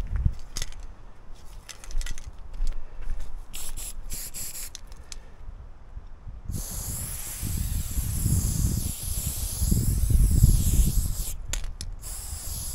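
Aerosol spray paint can being sprayed: a few short spurts, then a steady hiss of about five seconds starting about halfway through, then short spurts again near the end.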